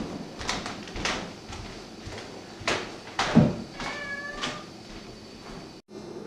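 Scattered knocks and footfalls, with a heavier thump a little after three seconds. Then a short, high-pitched cry, cat-like, lasting under a second.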